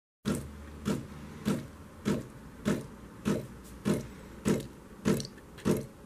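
Siemens EQ.300 automatic coffee machine pumping liquid out through its spout into a jug during its cleaning and descaling programme. The liquid comes in regular spurts, about one every 0.6 s, over a low steady hum.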